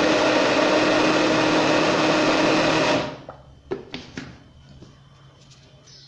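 Countertop blender running on pulse, mixing a thin pizza batter, then cutting off suddenly about three seconds in. A few light knocks follow soon after.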